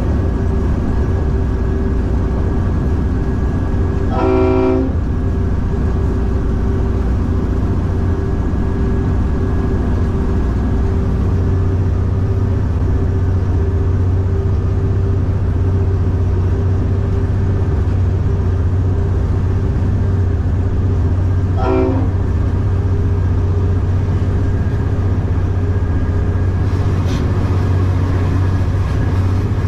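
V/Line A class diesel-electric locomotive heard from inside the cab: the diesel engine runs steadily under way, and the horn sounds twice, a blast of under a second about four seconds in and a shorter toot a little past twenty seconds.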